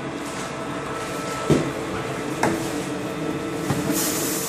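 Corn-puff extruder running with a steady hum, with a few knocks from a plastic bucket being handled. Near the end comes the hiss of dry corn meal being poured into the hopper.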